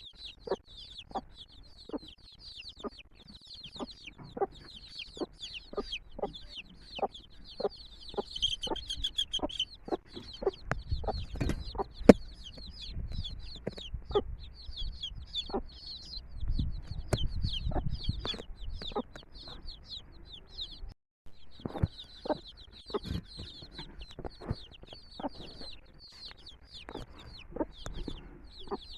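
Chicks peeping continuously and rapidly, with a mother hen's short clucks about once or twice a second. The sound cuts out for an instant about two-thirds of the way through.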